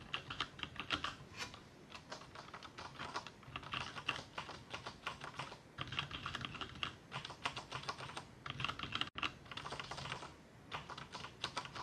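Typing on a James Donkey 619 mechanical keyboard with Gateron Black switches: fast runs of key clacks broken by short pauses.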